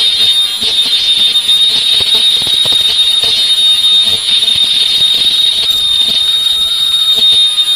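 Ultrasonic lace sewing machine running as fabric feeds through, giving a steady high-pitched whine with irregular light clicks.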